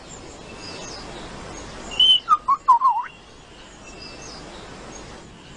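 A bird calling: a short run of whistled notes about two seconds in, one high clear note followed by several quick notes gliding up and down, over a faint steady hiss.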